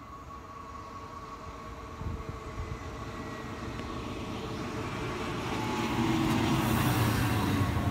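Regio 2N (Z 55500 series) double-deck electric multiple unit approaching and running alongside the platform, its rumble and rail noise growing steadily louder and loudest near the end.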